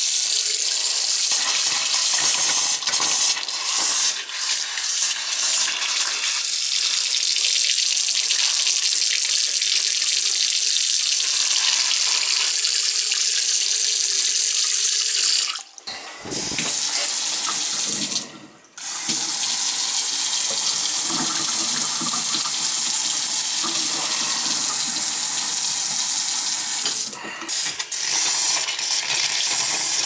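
Water running hard from a faucet into a sink, a steady hiss broken briefly about 16 and 18 seconds in. The hot-water lines are being flushed to get the air out after a new water heater was filled.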